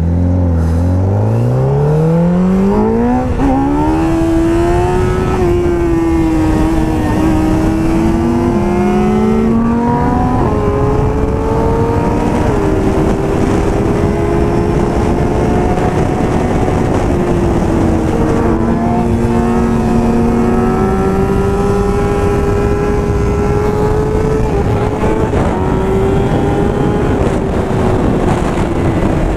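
A vehicle engine revs up, its pitch climbing quickly over the first few seconds. It then holds at high revs with small rises and dips, over steady rushing wind noise.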